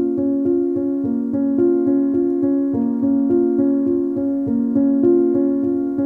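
Background music: a keyboard playing a steady, even run of repeated notes.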